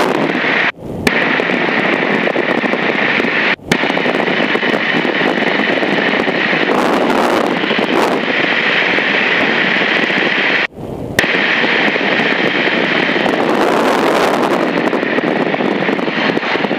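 Yak-52's nine-cylinder radial engine running at low landing power, its drone mixed with a rush of air through the slid-back canopy, as the aircraft comes in and rolls out. The sound drops out abruptly for a moment three times.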